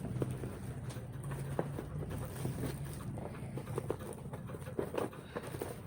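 Light clicks and taps of plastic vacuum-cleaner accessories and packaging being handled, over a steady low hum.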